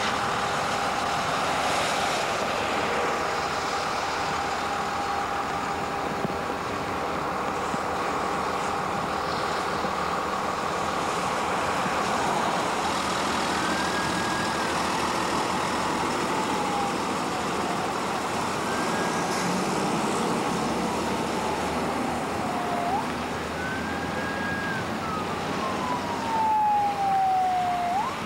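Steady hiss of traffic on a wet highway. About halfway through, an emergency vehicle's siren begins to wail: three sweeps, each rising quickly, holding high and then falling slowly, about five seconds apart, the last one loudest.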